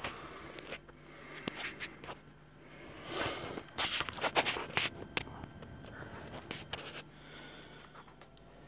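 Rustling, scraping and clicks from the recording phone being handled and moved, loudest for about two seconds in the middle, over a faint low steady hum.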